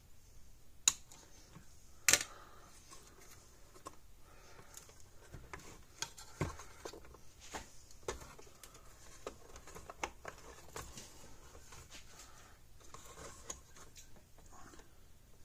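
Irregular clicks and light knocks of hands fitting wires, a large capacitor and a circuit board into a fence energizer's plastic case, with two sharp clicks near the start the loudest.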